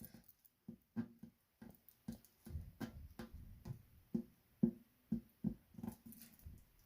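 Fingers pressing and rubbing a glued patch onto the inner liner of a tire, making a string of irregular, faint short knocks, several a second, as the patch is seated and air pockets are worked out.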